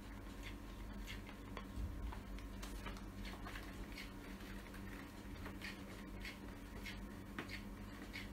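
Plastic spoon stirring a thick coffee-and-conditioner mixture in a bowl, ticking lightly against the sides about twice a second.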